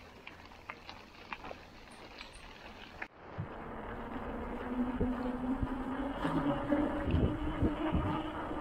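Touring bicycle riding: light ticks and rattles on a gravel track, then after an abrupt cut a louder, steady buzzing hum of tyres rolling on pavement with wind noise on the microphone.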